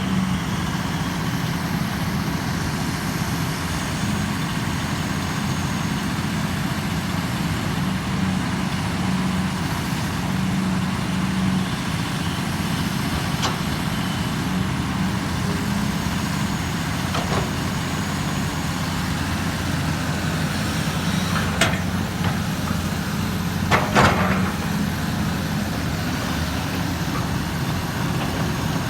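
Excavator's diesel engine running steadily under work, with a few short knocks from the machine at work, the loudest about two-thirds of the way through.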